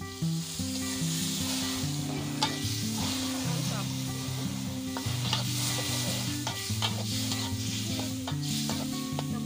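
Squid and vegetables sizzling in a steel wok over a wood fire as tamarind liquid is poured in, with a metal spatula stirring and knocking against the pan now and then.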